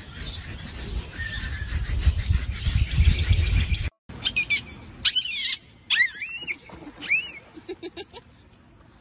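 First a rough rustling noise with a low rumble. Then, from about four seconds in, a bottlenose dolphin calls with its head out of the water: a run of short high whistles and squeaks that rise and fall, followed by a quick series of low pulses.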